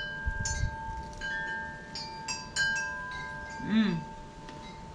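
Wind chimes ringing: several light strikes, each leaving long tones that hang on.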